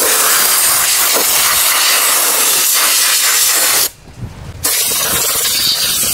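Compressed-air blow gun hissing steadily as it blows water off a tractor's hydraulic valve block. It cuts off for about half a second a little past the middle, then starts again.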